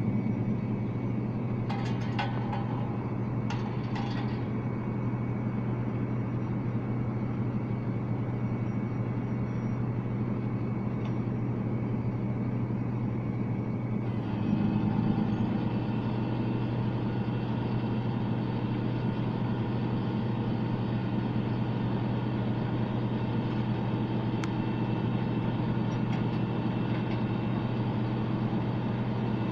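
Flatbed tow truck's engine running steadily, a low hum, while the winch pulls a car up the tilted bed. There are a few light metallic clanks about two seconds in. About halfway through the sound surges briefly, then settles with a higher whine added.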